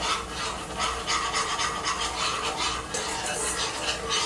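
A utensil stirring a thick butter-and-flour roux in a skillet, scraping the pan in repeated rasping strokes.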